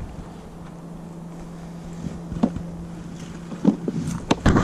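A small motor running with a steady low hum. A few sharp knocks and clatters come near the end.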